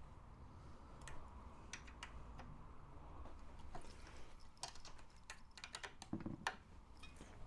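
Faint, irregular small clicks and ticks of a hand tool and metal parts while the bolts of a model tank's metal drive case are tightened, over a low steady room hum.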